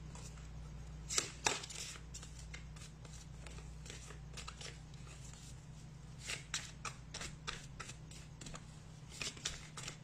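Tarot cards being shuffled and handled by hand: soft papery flicks and taps in scattered clusters, about a second in, around the middle and near the end. A steady low hum runs underneath.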